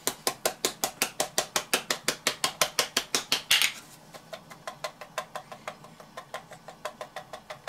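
Spice shaker of smoked paprika being shaken over a bowl of raw meat: a fast, even tapping of about eight shakes a second, with a short hiss about three and a half seconds in, then quieter, slower tapping.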